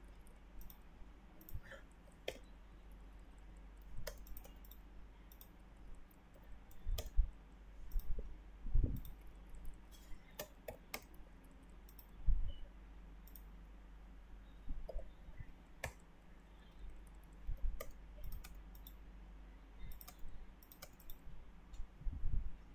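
Irregular clicks of a computer mouse and keyboard, with a few louder low thumps, over a steady low hum.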